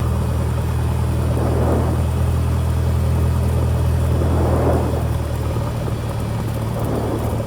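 Cessna 172P's four-cylinder Lycoming O-320 engine running steadily at low power. It becomes slightly quieter about five and a half seconds in.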